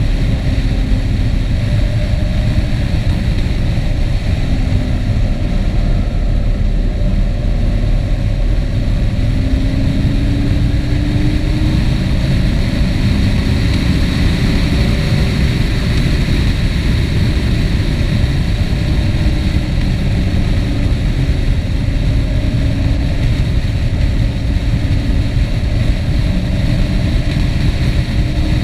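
A vehicle travelling on the road: a steady rush of wind and road noise with an engine's note that slowly rises and falls underneath.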